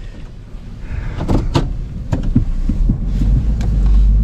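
Low, steady rumble of a vehicle heard from inside the cab, with about half a dozen sharp clicks and knocks scattered through the middle.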